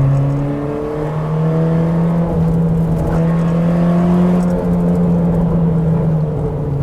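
Car engine running under load, its pitch rising and then dropping back several times, as when accelerating and lifting off.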